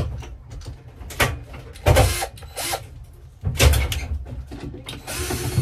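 Cordless drill-driver (screw gun) running in several short bursts, the longest near the end.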